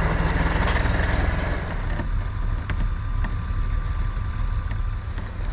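Vehicle engine idling steadily with a low rumble. The higher-pitched noise over it drops away about two seconds in.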